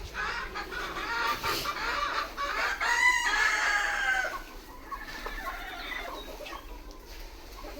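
A flock of free-range desi chickens clucking, with one louder, drawn-out call about three seconds in. The calling drops off after about halfway.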